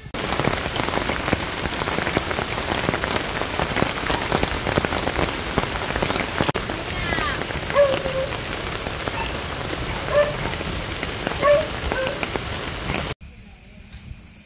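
Heavy rain pattering on a camping tarp, with water splashing as it pours off the tarp's edge, a dense crackle of drops. A few short pitched chirping calls sound over it about halfway through. The rain stops abruptly near the end, leaving a much quieter hiss.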